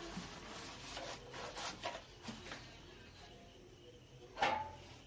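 Rubbing and scraping handling noises from work at the bench, with several short scrapes and clicks and a louder scrape about four and a half seconds in.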